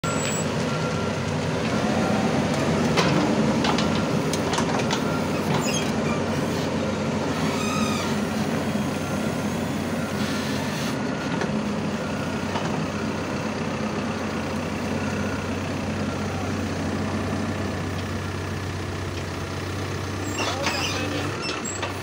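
Caterpillar 416F backhoe loader's diesel engine running as the machine drives by, loudest a few seconds in and slowly fading as it moves away. A few short knocks sound in the first several seconds.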